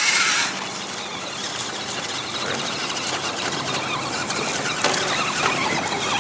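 Radio-controlled scale rock crawler driving through a shallow rocky stream: a steady whir from its electric motor and gears over the splash and rush of water around its tyres.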